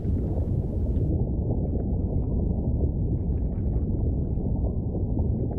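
Steady, muffled low rumble of ambient sound design, with no tune or voice. It stays level throughout.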